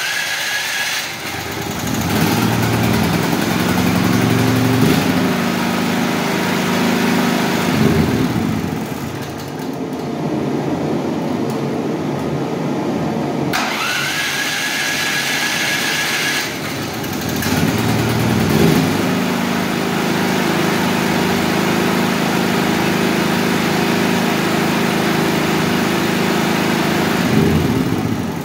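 Cold start of an Einhell BT-PG 5500/1 generator's single-cylinder four-stroke engine on its electric starter: the starter whines, the engine catches and runs steadily, then its even note breaks up about eight seconds in. About thirteen seconds in the starter whines again, the engine catches and settles into a steady run, and its note drops away near the end.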